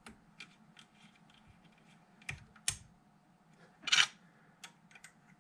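Light clicks and taps of small metal parts being handled as a mounted grinding point is fitted to a pencil grinder in a lathe tool post, with a louder, longer rattle about four seconds in.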